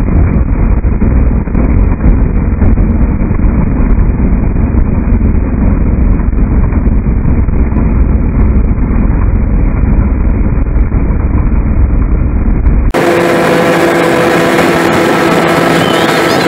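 Steady low rumble with wind noise, as of a vehicle driving along. About 13 seconds in it cuts abruptly to a different, brighter steady hum with held pitched tones.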